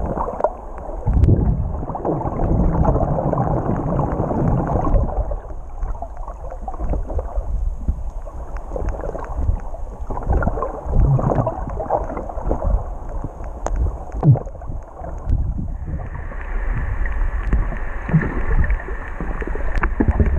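Muffled sloshing and gurgling of water heard through a submerged camera, with scattered dull knocks. A steady higher hum comes in about three-quarters of the way through.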